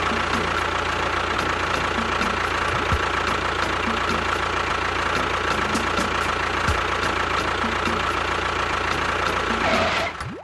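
Engine running steadily at idle with a faint, even ticking, cutting off suddenly near the end.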